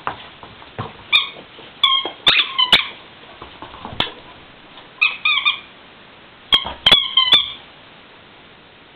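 A squeaky dog toy being squeezed, giving short squeaks in quick clusters of two to four with pauses between, among sharp clicks.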